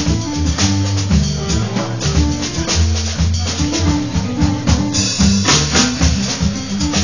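Live small-group jazz: upright piano, double bass and drum kit playing together, the drummer keeping time on cymbals and drums. A louder cymbal wash comes in about five seconds in.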